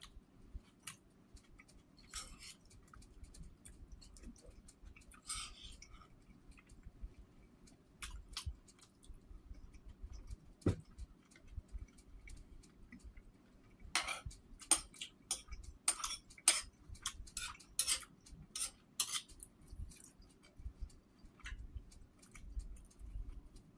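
A metal spoon clinking and scraping against a bowl of soupy rice porridge during eating, as scattered sharp clinks with a quick run of clinks about two-thirds of the way through, over faint mouth sounds of chewing.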